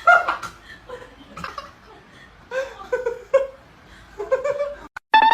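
People laughing and giggling in short bursts. Near the end the sound cuts out briefly, and a loud call with a rising pitch begins.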